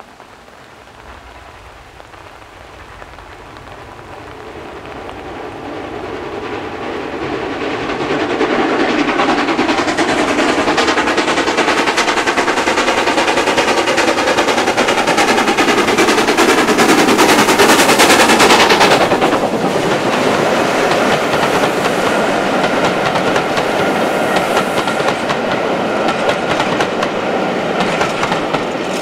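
LNER K1 class 2-6-0 steam locomotive no. 62005 approaching under steam, its rapid exhaust beats growing louder over several seconds until it passes close by about two-thirds of the way in. Its coaches then roll past with a clickety-clack over the rail joints.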